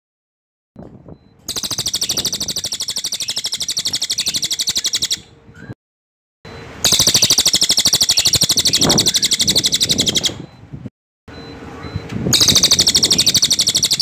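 Crested jay (cililin) giving its loud, tight rolling rattle: three long bursts of very rapid pulses, each about three to four seconds long, with short pauses between them.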